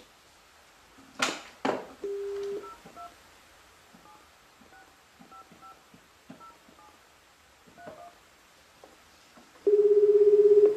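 A telephone call being placed. Two clicks are followed by a short dial tone, then a string of faint touch-tone beeps as a phone number is keyed in. Near the end a loud, buzzing ringback tone starts, showing the line is ringing at the other end.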